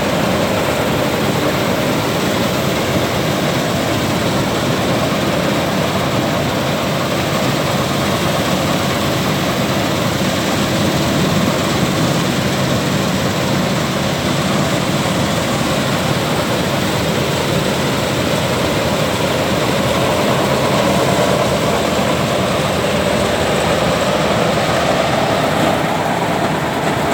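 Dasmesh 9100 combine harvester running, a steady, loud engine and machinery noise.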